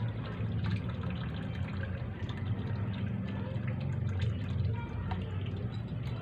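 Cooking oil being poured into an empty steel wok, a steady liquid pour with small splashes against the metal.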